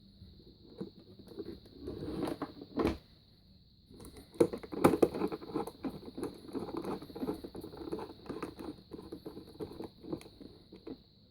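Irregular clicks, taps and rustling of plastic parts being handled, busiest in the second half.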